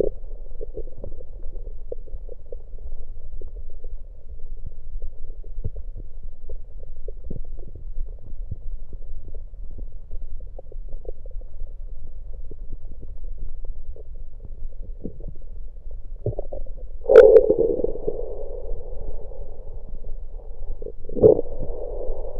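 Stomach and gut sounds picked up through an electronic stethoscope on the belly after gulping down Coke: a steady crackling gurgle with many small pops. Two louder sudden gurgles stand out, one about three-quarters of the way through (the loudest) and one near the end.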